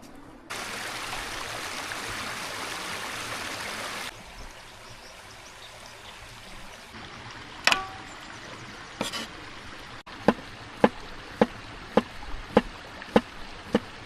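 Water pouring for about three and a half seconds, stopping abruptly. Then, about ten seconds in, a blade chopping on a board in steady strokes about every 0.6 seconds, such as meat being chopped for adana kebab.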